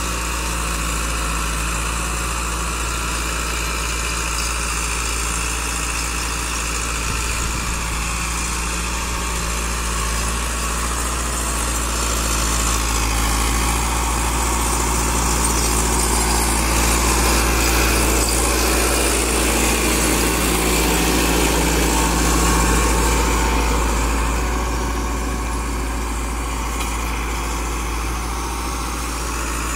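Massey Ferguson 385 tractor's four-cylinder diesel engine running steadily under load, pulling a cultivator through the soil; it grows louder for a while near the middle as the tractor passes closer.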